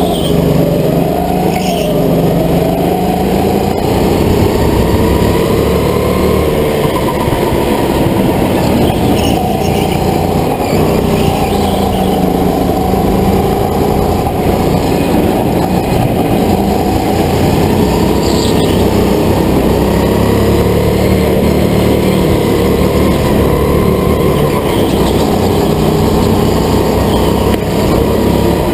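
Go-kart motor running at speed, its pitch rising and falling as it slows for corners and accelerates out of them.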